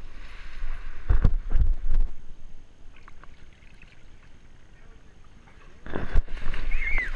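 Muffled underwater sound from an action camera under the water of a swimming pool: a few dull thumps and water swishes in the first two seconds, then quieter, with splashing water growing loud again near the end.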